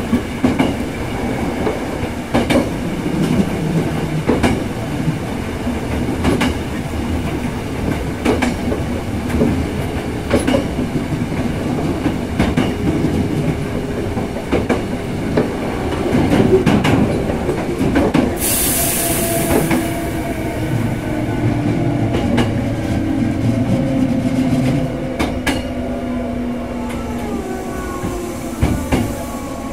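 Hankyu 6300 series electric train running, heard from inside the car: a steady rumble with irregular clicks of the wheels over rail joints. About 18 seconds in a short burst of air hiss cuts in, and after it the motor tones fall in pitch as the train slows.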